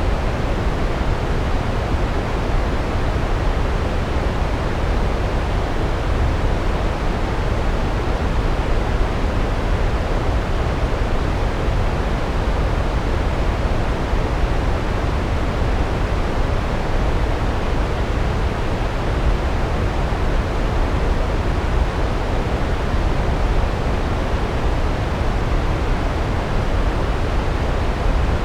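Large waterfall, water falling heavily onto rocks: a steady, deep rushing with most of its weight in the low end and no let-up.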